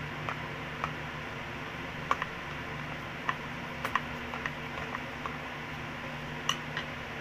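Scattered light clicks and taps of a thin stick working against a plastic funnel and plastic ice candy bags, over a steady hum from an electric fan.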